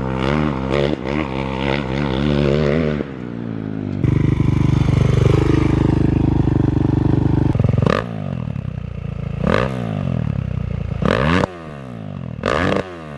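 Kawasaki KX450X single-cylinder four-stroke dirt bike engine through an FMF 4.1 RCT slip-on exhaust. It pulls steadily under load, then is revved up and back down sharply several times in the last few seconds.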